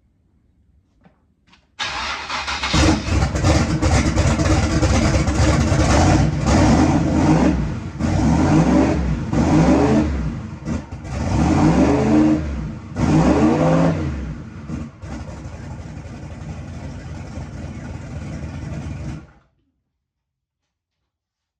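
Chevrolet S10 pickup's carbureted engine starting, revved in several quick blips, then idling steadily before it is shut off. It runs lazy and unhappy, which the owner puts down to ignition timing probably locked out and unable to advance, and a carburetor that still needs adjusting.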